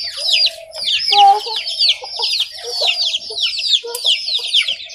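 Chickens calling: an unbroken run of high, steeply falling peeps, several a second, over short low clucks.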